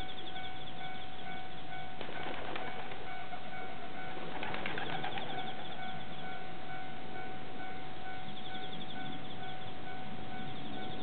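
Japanese railway level-crossing warning bell ringing on and on at an even pitch, the usual sign that a train is approaching. A brief rustle comes about two seconds in and a louder one about halfway through.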